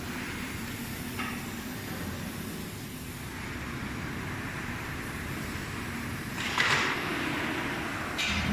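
Desiccant rotor dehumidifier running: steady fan and airflow noise, with two short, louder hisses about six and a half and eight seconds in.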